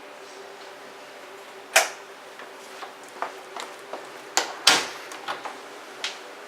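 A few sharp knocks and clicks, the loudest one just under two seconds in and a close pair about four and a half seconds in, with lighter taps between, over a steady low hum.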